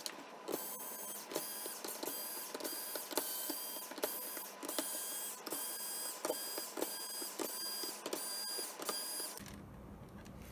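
Screwdriver backing out the screws of a laptop's bottom cover: a steady mechanical whine broken by regular clicks about twice a second, which stops near the end.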